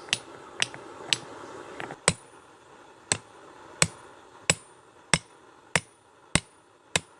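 Hammer blows on mild steel bar stock over an anvil while forging a punch: about a dozen sharp, ringing strikes, uneven in the first two seconds and then settling into a steady pace of roughly three blows every two seconds. A steady background noise drops away about two seconds in.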